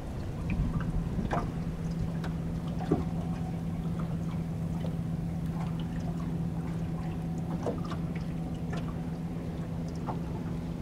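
Steady low hum of a small motor on a fishing boat, starting about half a second in, over water pouring and trickling, with scattered light clicks and taps.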